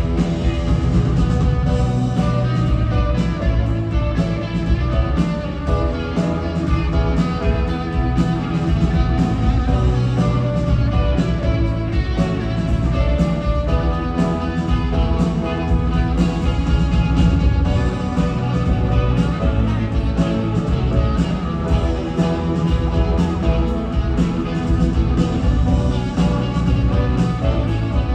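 Live rock band playing through an arena PA, heard from the audience: guitars, bass and drums in a steady, loud groove, mostly instrumental with little singing.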